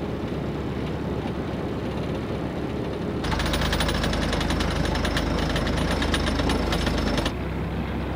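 Sailboat's inboard engine running steadily at low speed. About three seconds in, a loud rapid mechanical rattle and a heavier engine drone start together and last about four seconds, then stop suddenly.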